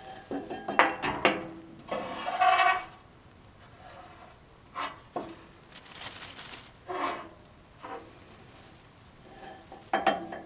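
Metal parts of a wood-gas generator's gas filter clanking and scraping as its fine ash is cleaned out: a run of separate knocks and rubbing scrapes, some with a short metallic ring, with quiet gaps between.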